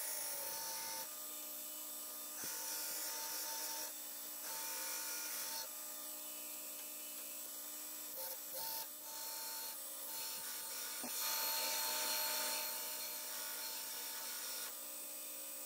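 A 2x72 belt grinder grinding the profile of a cu-mai knife blank (copper layered with steel): a steady hiss of abrasive belt on metal that steps up and down in level from pass to pass.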